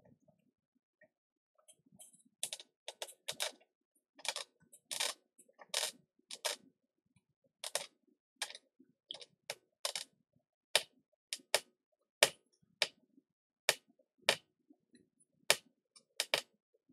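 Irregular small clicks and short scraping strokes of fine hand tools working on an iPhone 5s logic board, a few strokes a second, some sharper and louder than others.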